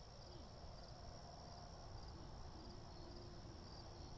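Faint steady chorus of crickets and other insects, with small chirps repeating at an even pace.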